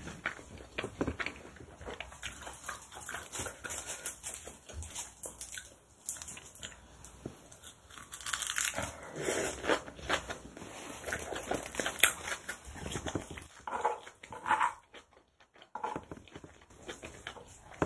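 Close-miked mukbang eating sounds: chewing and crunching mouthfuls of kimchi bibimbap wrapped in roasted seaweed, with many small wet clicks. A wooden spoon stirs and scrapes the rice in a ceramic bowl.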